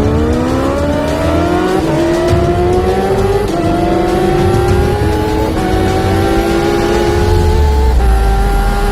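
Kawasaki Ninja H2R's supercharged inline-four engine accelerating hard under full throttle. The pitch climbs steadily in each gear and dips briefly at each of four upshifts, and the climbs grow slower as speed builds.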